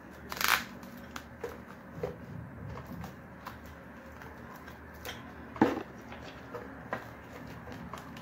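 Plastic cling film being pulled from its roll and crinkled over glasses, with scattered crackles and clicks. There is a short rustling burst about half a second in, and a sharp tap about five and a half seconds in, the loudest sound.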